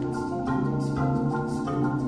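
Instrumental music with held notes and a steady beat, about one accent every two-thirds of a second.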